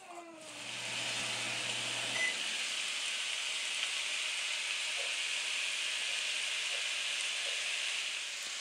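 Ground venison and sausage sizzling steadily in a nonstick frying pan over medium heat.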